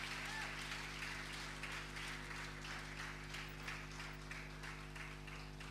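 Audience applauding after the music stops, the clapping slowly fading, over a steady low hum.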